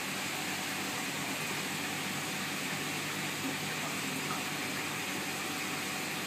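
Steady hiss of a saltwater aquarium's water circulation, with the pump and filter running and a faint low hum underneath.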